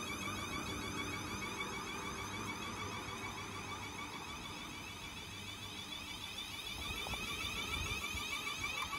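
Class 444 Siemens Desiro electric multiple unit accelerating out of the station, its traction motors giving a high whine of several tones with a low hum beneath that fades about halfway through.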